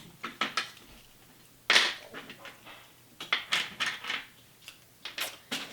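Small plastic Kinder Surprise toy pieces being handled and fitted together, giving scattered sharp clicks and taps, the loudest about a second and a half in and a cluster a little after the middle.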